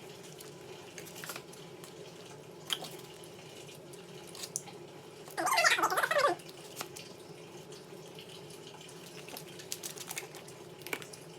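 Close-up eating sounds: wet mouth clicks and chewing over a steady low hum. About five seconds in comes a louder crackly burst lasting about a second, like a crunchy bite into the fried meat.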